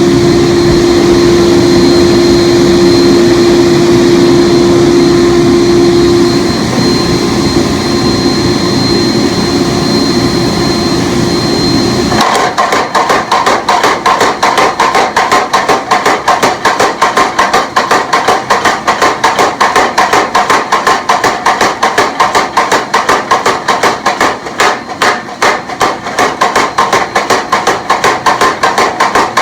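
A steady mechanical hum, then about twelve seconds in a power hammer starts striking hot steel in a fast, even rhythm of several blows a second, drawing out a tomahawk blade.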